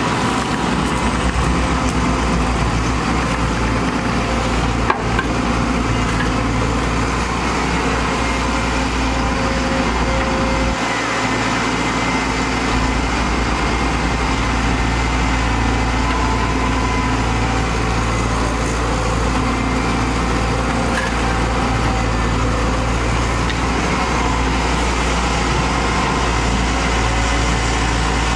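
Diesel engine of a wheeled Samsung excavator running steadily as it digs dirt and loads a dump truck, with a sharp click about five seconds in.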